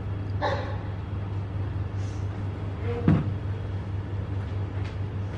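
Room tone with a steady low hum, a short rustle about half a second in and a single sharp knock about three seconds in.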